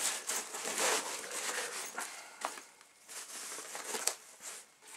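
Gear being packed into a nylon backpack pocket: irregular rustling and plastic crinkling as items are handled and pushed in, with a couple of sharp clicks in the second half.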